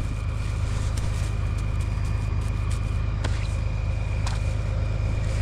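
Tractor engine running steadily, a low even rumble with a thin steady high whine above it and a couple of faint clicks.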